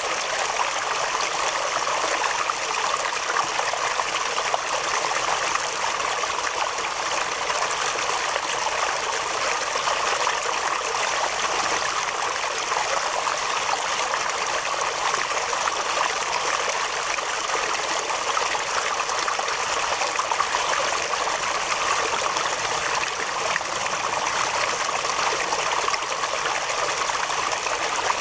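Small waterfall spilling down a rock face and splashing into a shallow pool: a steady rush and splatter of falling water.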